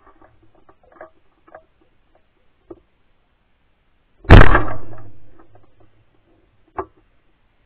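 A single 12-gauge shotgun shot fired at a flying quail about four seconds in, its report dying away over a second and a half. There are faint rustles and clicks before it and one sharp click near the end.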